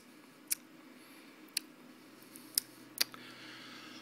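A handful of short, sharp clicks, about five, irregularly spaced, over a quiet room, with a faint soft hiss starting near the end.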